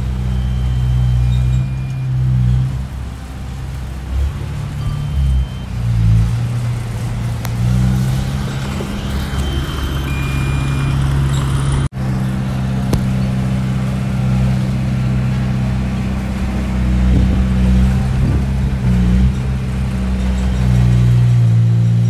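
Diesel engine of a small crawler bulldozer running under load as it pushes sand, its level and pitch shifting as the blade works. The sound cuts out for an instant about halfway, then the engine carries on.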